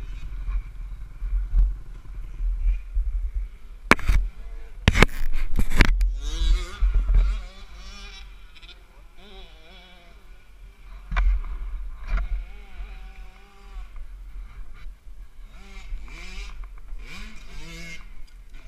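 A few sharp knocks and clatter about four to six seconds in and again near eleven seconds, over a steady deep rumble on a helmet-mounted camera, with indistinct, muffled voices.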